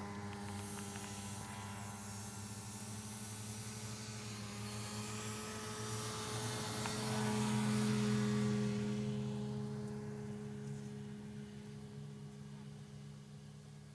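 An engine runs with a steady, even hum, swelling to its loudest about eight seconds in and then fading away, with a hiss over it in the first half.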